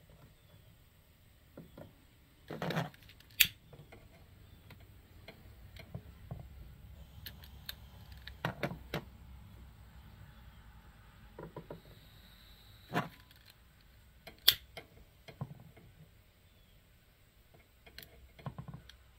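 Scattered metallic clicks and knocks from handling an old Coleman Peak 1 two-burner camp stove and its screw-on fuel canister and valve while trying to get it to light. Two sharp clicks stand out, about three and a half and fourteen and a half seconds in, and a quick run of clicks comes near the end as a long lighter is held to a burner.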